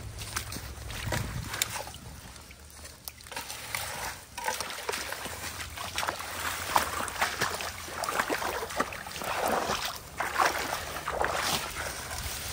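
Long-handled rake dragged through soggy leaves and shallow standing water, with repeated scraping and splashing strokes that come thick and fast in the second half, clearing leaf debris that blocks the ditch's flow.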